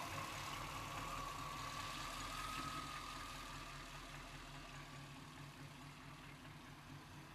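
1990 Chevrolet C1500's 350 TBI V8 (5.7 L, throttle-body injected) idling low and rough, a fault the owner has not been able to trace and that sometimes lets the engine die. A faint wavering whine runs over the idle, and the whole sound grows gradually quieter.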